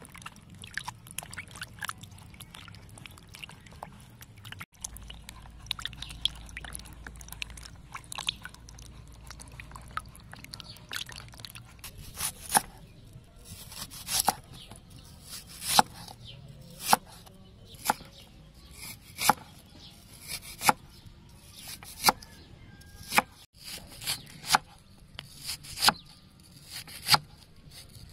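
Water splashing lightly as onions and chilies are washed by hand in a plastic basin, then a cleaver slicing onion on a wooden chopping board. The chopping shows as sharp knocks of the blade on the board, about one a second through the second half.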